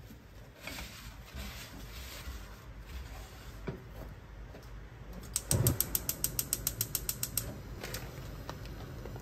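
Kitchen paper wiping around the inside of a nonstick wok. About halfway through comes a dull thump, then a fast run of sharp clicks, about ten a second for two seconds, like a gas hob's spark igniter ticking.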